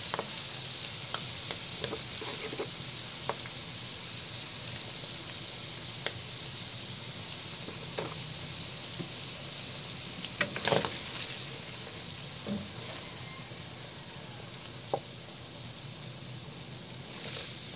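Cream and sautéed tuna and mushrooms sizzling in a hot nonstick wok, with a few sharp knocks of a wooden spatula against the pan as it is stirred. The loudest knock comes about eleven seconds in, and the sizzle eases a little in the second half.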